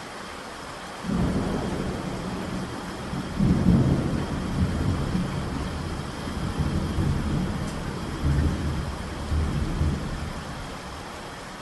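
Steady heavy rain with a thunderclap that breaks suddenly about a second in and rolls on in several low swells, loudest near the start of the roll, before fading away near the end.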